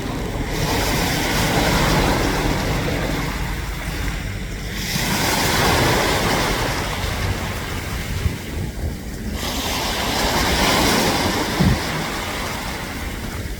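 Sea waves breaking and washing up the shore, swelling and falling back about every four seconds, with wind rumbling on the microphone.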